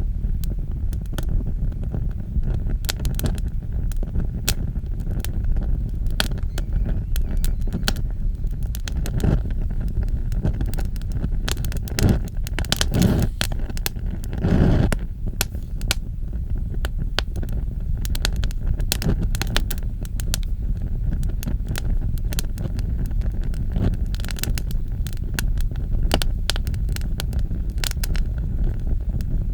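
Fire burning with a steady low roar and frequent sharp crackles and pops, swelling briefly into a louder whoosh about halfway through.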